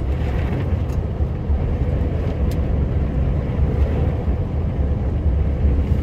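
Steady low rumble of a heavy snowplow truck's engine and drivetrain, heard from inside the cab while it pushes through blowing snow.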